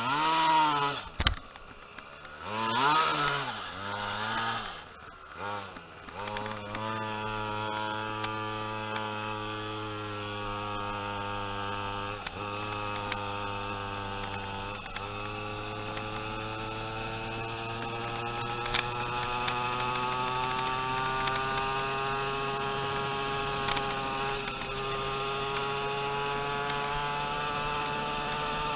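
Pocket bike's small two-stroke engine blipped up and down several times in the first few seconds, then running steadily under way, its pitch climbing slowly as the bike gathers speed.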